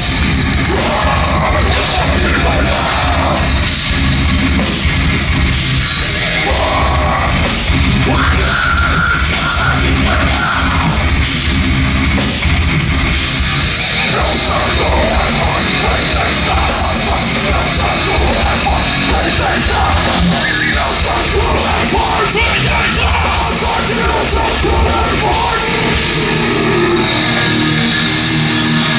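Live heavy metal band playing loud. The full band, drums included, runs steadily, and the bass end drops out near the end.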